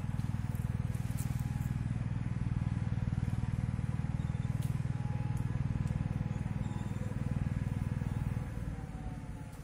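An engine running steadily with a low pulsing hum, fading away near the end.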